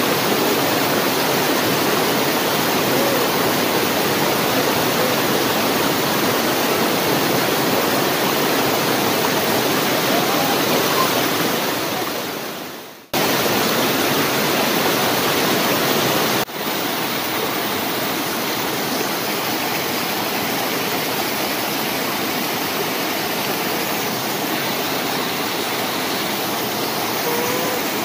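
Small waterfall pouring into a rocky pool: a steady rush of falling water. It fades out briefly about halfway through and comes back suddenly, a little quieter a few seconds later.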